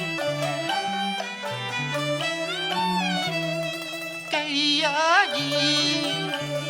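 Cantonese opera instrumental accompaniment playing a melodic passage, with a singer entering about four seconds in on a long note with wide vibrato.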